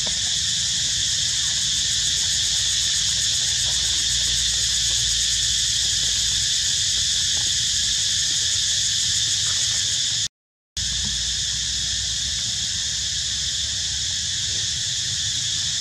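Steady, high-pitched chorus of insects droning without a break; the sound cuts out for about half a second around ten seconds in.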